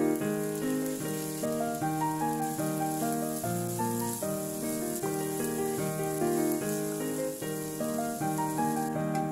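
Background keyboard music with a steady melody, over a faint sizzle of frozen vegetables frying in a wok as they are stirred with a wooden spatula.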